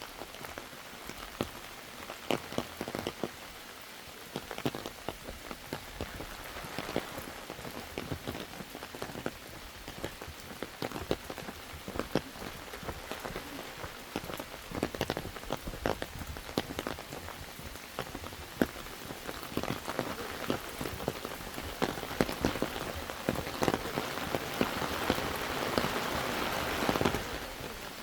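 Rain falling, with many irregular drops ticking sharply on nearby surfaces over a steady hiss. The hiss grows louder from about three-quarters of the way in, then drops back shortly before the end.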